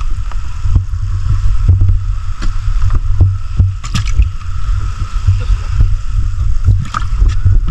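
A small boat's engine running with a steady low rumble and a faint steady whine above it, with scattered clicks and knocks as the catch and the camera are handled in the boat's hold.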